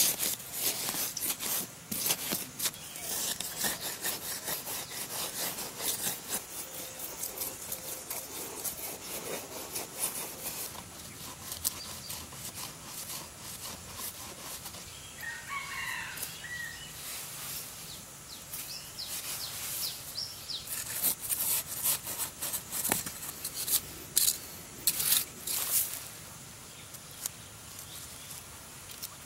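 Parang blade digging and scraping into soil in bursts of quick scrapes and knocks, busiest near the start and again later on. A short bird call comes about halfway through.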